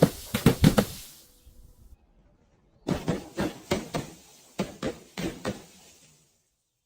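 A run of sharp cracks and crunches as something brittle is crushed: a quick cluster of about five in the first second, then about eight more spaced roughly a third of a second apart starting about three seconds in.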